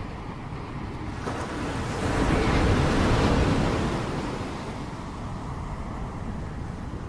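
Ocean surf: a wave breaking and washing in. The rush swells from about a second in, is loudest in the middle, then dies back to a steady wash.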